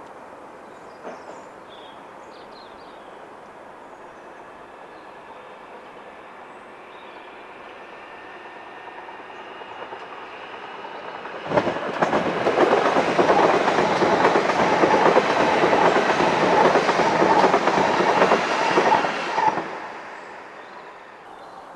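Electric multiple-unit passenger train passing close below. Its noise grows slowly from about eight seconds in, jumps suddenly to loud just before halfway, stays loud for about eight seconds, then falls away quickly.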